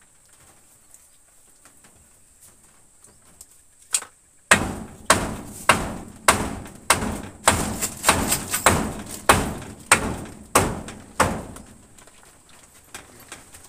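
Repeated heavy knocks on wood during hut building: about a dozen blows at a steady pace, roughly one every half second, following a single knock a few seconds in.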